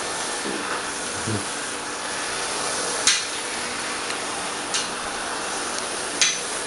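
A steady hiss, broken three times by a short sharp click, about a second and a half apart, in the second half.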